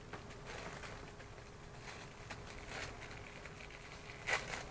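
Faint rustling and small knocks from handling a new plastic helmet strap clip and its packaging while it is being opened, with one louder, sharper rustle near the end.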